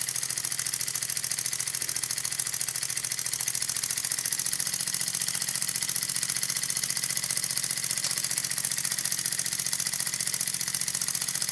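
Small single-acting spool valve model engines running on low-pressure air: a fast, even exhaust beat over a steady hiss of escaping air.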